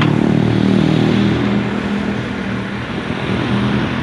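Road traffic: a motor vehicle's engine droning close by, steady, easing off a little in the second half, over a haze of traffic noise.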